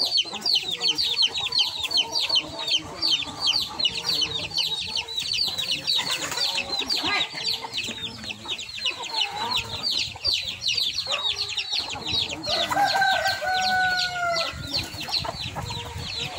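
Backyard chickens: a rooster crows once, about two seconds long, near the end. Throughout, a fast, steady, high-pitched chirping repeats several times a second.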